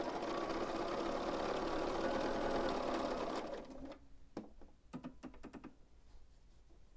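Bernina 770 QE sewing machine running at a steady speed, stitching a quarter-inch seam, then stopping a little past halfway. A few light clicks follow.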